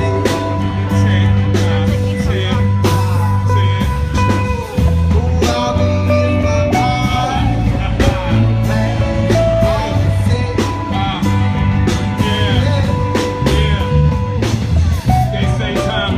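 Rock music with guitar, bass and a steady drum beat, and some singing.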